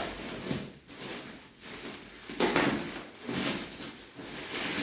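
Repeated rustling and crinkling of a mattress's plastic packaging as it is handled, in swells about a second apart.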